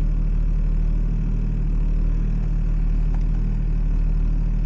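Car's engine and road noise heard from inside the cabin: a steady low drone with no revving or change in pitch.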